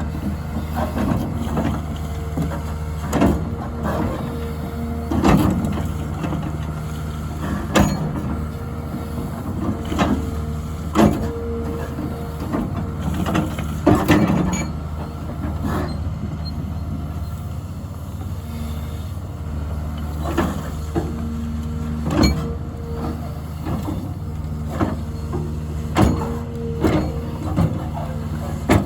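Hyundai HX300 excavator's diesel engine running steadily under digging load, with a steady whine over the engine hum and repeated sharp clanks every second or two as it works the ground.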